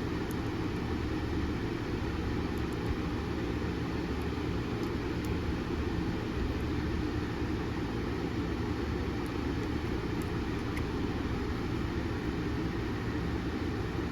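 Steady background hum and hiss, low and even, with a few faint tiny clicks.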